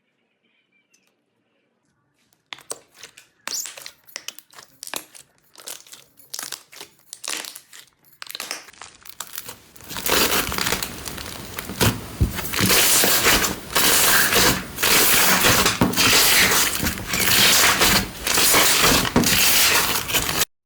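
Crunchy slime being pressed and squeezed by hand. After a short silence it gives scattered crackles and pops, then from about ten seconds in a dense, loud crackling crunch in repeated squeezes.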